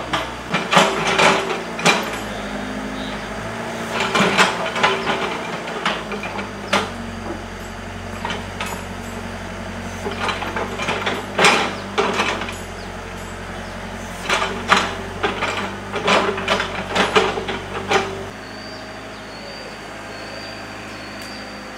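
Hyundai 55W wheeled excavator's diesel engine running steadily while its steel bucket digs into rocky soil and rubble, with repeated bursts of clanking and scraping. About 18 seconds in the clatter stops and the machine quietens, leaving the engine and a thin, steady high tone.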